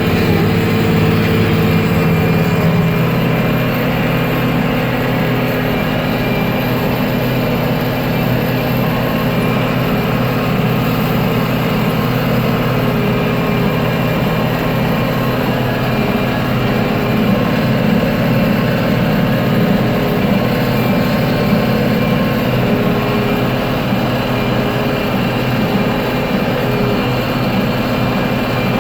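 Case IH 5240 Maxxum tractor's six-cylinder diesel running steadily under load, pulling a Case IH 8530 small square baler that is working as it goes.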